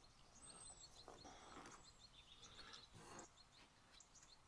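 Near silence, with a faint high chirp about half a second in and a few other faint short sounds.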